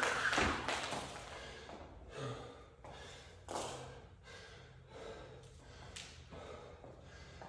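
Jump rope spinning through double-unders, slapping the floor about three times a second with a steady whirr, stopping about a second in. Then an athlete's heavy, gasping breathing after a hard effort.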